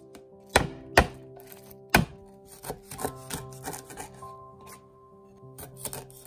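A kitchen knife chopping through lemongrass stalks on a wooden cutting board: three sharp strokes in the first two seconds, then lighter knocks around the middle. Background music with long held tones underneath.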